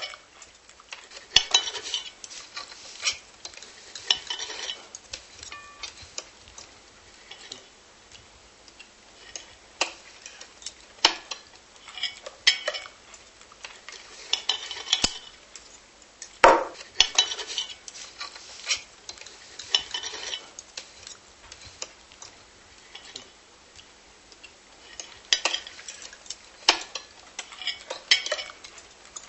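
Cutlery clinking and scraping against plates and dishes in irregular bursts of sharp clicks and short rattles.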